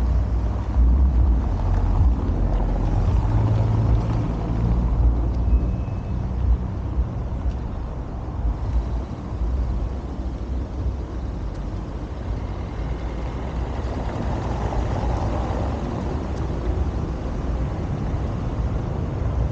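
Street traffic on a cobbled town square: the low rumble of a car, heaviest in the first few seconds, then easing into a steadier background hum.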